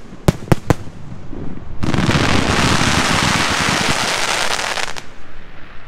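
Fireworks show: three sharp bangs in the first second, then about three seconds of dense hissing as low-fired sprays of sparks go up, cutting off suddenly.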